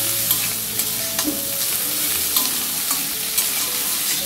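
Sliced vegetables sizzling in hot oil in a metal kadai as a metal spatula stirs and tosses them, with repeated sharp clicks and scrapes of the spatula against the pan about every half second.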